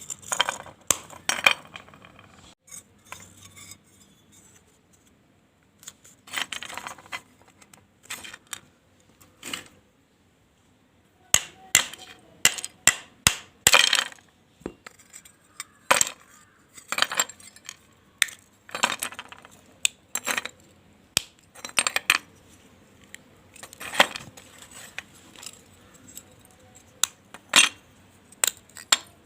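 Pieces of a fired clay gullak crunching and clinking as they are bitten and chewed, in irregular sharp cracks with a pause of about a second near the middle.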